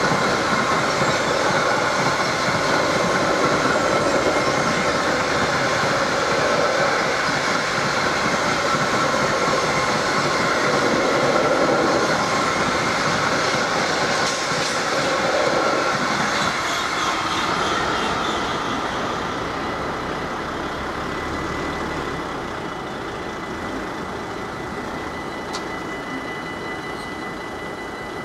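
Freight train of hopper wagons rolling past at a level crossing, steel wheels running over the rails. The noise fades gradually over the second half as the end of the train goes by.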